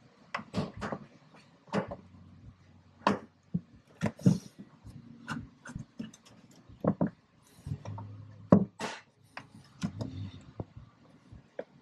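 Irregular plastic clicks, knocks and rubbing from the air box cover of a 2017 Polaris RZR Turbo being pressed into place while its bottom latch clips are worked at by hand. The loudest knocks come about four seconds in and again about eight and a half seconds in.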